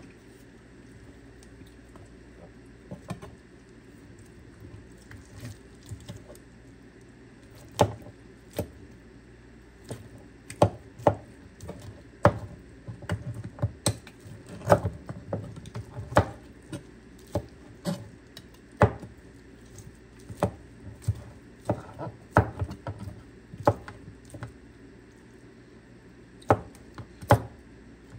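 Irregular knocks and clicks of food preparation at a kitchen counter, some sharp and loud, over a faint steady hum. They come sparsely at first and much more often from about eight seconds in.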